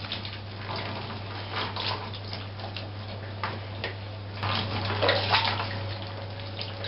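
Water splashing and trickling in a bathtub as a small poodle's wet coat is soaked and worked through by hand, in irregular bursts that are loudest about halfway through.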